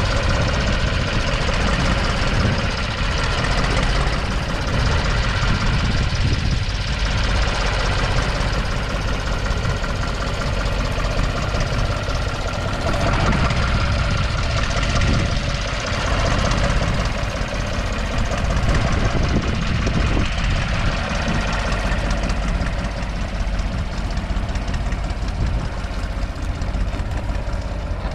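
1962 Nuffield 3/42's 2.8-litre three-cylinder diesel engine running steadily under load as the tractor pulls a two-furrow reversible plough through stubble.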